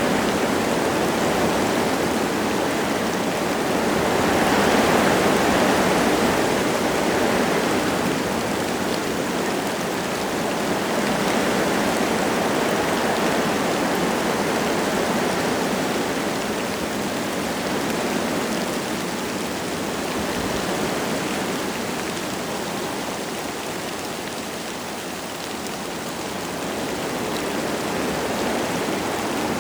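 Wind gusting through forest trees with light rain falling, a steady rushing that swells with a gust a few seconds in and eases off near the end.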